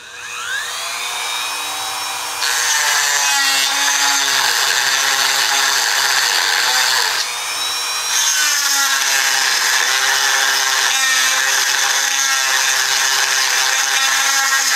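Handheld rotary tool spinning up with a rising whine, then grinding a notch into the engine's metal backing plate. It cuts in two stretches, with a short let-up about seven seconds in.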